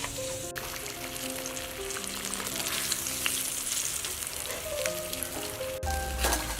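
Food frying in hot oil, a steady sizzle with small crackles of spattering oil, under soft background music.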